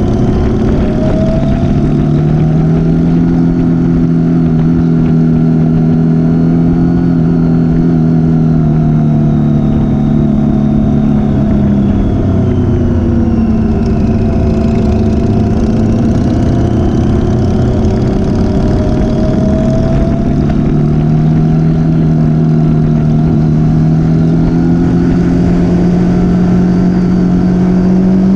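Motorcycle engine running at steady cruising revs over a rush of wind noise; the engine note drops about halfway through, then picks up again and climbs near the end.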